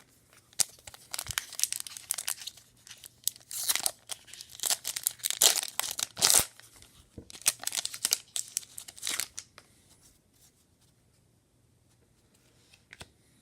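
A hockey card pack's wrapper being torn open and crinkled, with the cards rustling as they are handled. The rustling stops about two-thirds of the way through.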